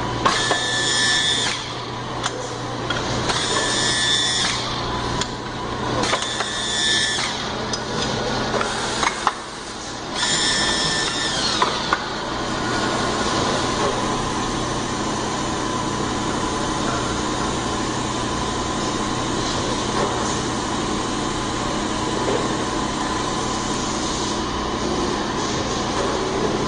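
Double-colour banana-type PU pouring machine running. In the first twelve seconds its motor whirs in several short bursts, the last one winding down. A steady machine hum follows.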